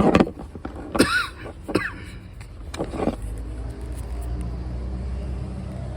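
A few sharp metal clanks of a tool being worked, one with a short squeak. From about three seconds in, a steady low hum of a vehicle engine running sets in.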